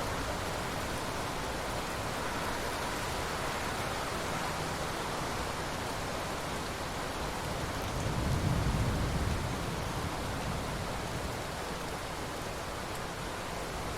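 Steady rain falling as an even hiss, with a low rumble of thunder swelling up about eight seconds in and fading over a second or two.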